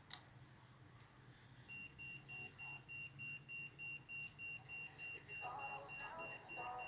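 Music played faintly through Bluetooth headphones, opening with a high electronic beep repeating about four times a second; fuller music comes in about five seconds in. A single click sounds right at the start.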